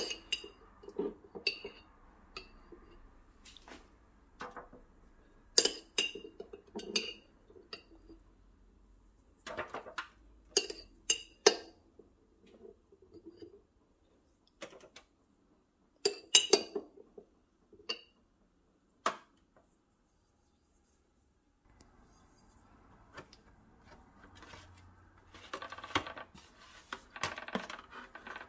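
Metal spoon clinking and scraping against the inside of a glass sauce jar, a long run of separate sharp clinks. Near the end it turns to softer scraping and crinkling as sauce is spread across an aluminium foil baking pan.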